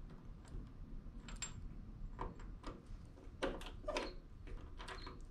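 A few light metallic clicks and knocks from a hand impact driver being handled and seated on a stuck screw, the strongest a pair about three and a half to four seconds in.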